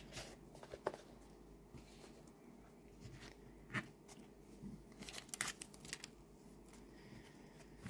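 Hands handling a tarot-style card deck and its paper guidebook on a tabletop: faint, scattered light taps and rustles, with a small cluster of clicks about five seconds in.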